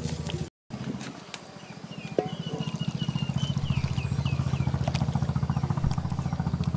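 A small engine running steadily with a rapid low throb, broken by a short gap near the start. A bird chirps a quick series of short notes about two to four seconds in.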